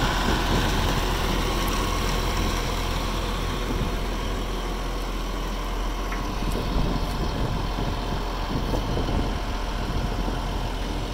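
Caterpillar 963C tracked loader's diesel engine idling steadily.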